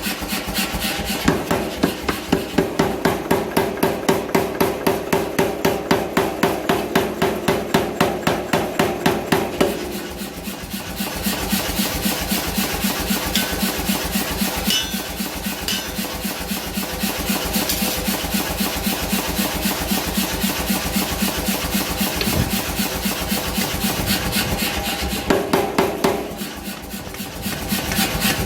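Power hammer striking hot steel over and over in a fast, even rhythm, with a steady motor hum under the blows and short lulls about ten seconds in and near the end.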